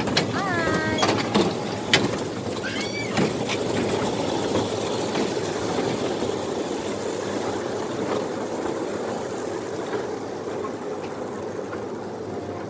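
Kiddie jeep track ride's cars rumbling along their rail track, a steady noisy running sound that slowly fades as the cars move away.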